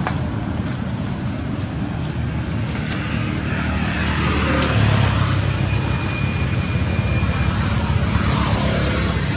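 Low, steady engine rumble of passing motor traffic, swelling louder about halfway through.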